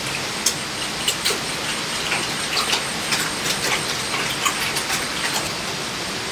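Heavy rain falling steadily, with many sharp, irregular drop hits close by.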